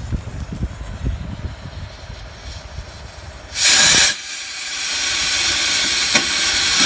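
A firework goes off with a sudden loud hissing burst about three and a half seconds in, then keeps burning with a steady hiss that grows louder.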